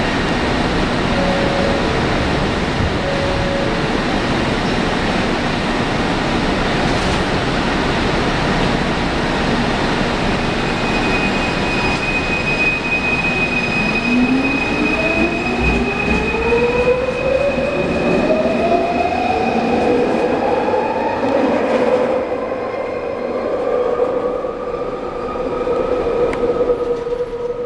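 Kelana Jaya Line Bombardier ART two-car train departing a station. A broad rumble and hiss runs throughout. From about halfway, a rising electric whine of its linear-induction motor drive climbs in pitch as the train accelerates, over a steady high tone.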